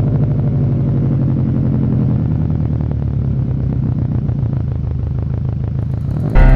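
A vehicle engine idling steadily with a deep, even pulse, slowly fading. Piano music comes in right at the end.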